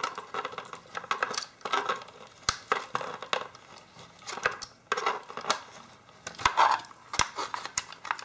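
Plastic electronics enclosure being handled and opened: irregular clicks, knocks and light rattles of hard parts, with a few sharper knocks, the sharpest about seven seconds in.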